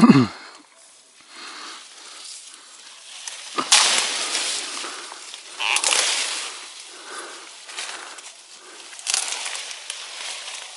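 Leaves, branches and grass rustling and swishing as a person pushes through bushes and climbs a small tree, rising in several swells about two to three seconds apart. It opens with a short low sound that falls in pitch.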